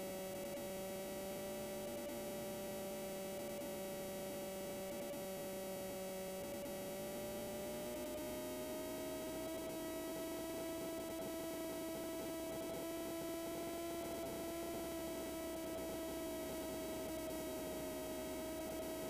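Engine and propeller drone of a Rider MD3 ultralight aircraft in flight on approach, heard as a faint, steady hum; its pitch rises slightly about seven to ten seconds in.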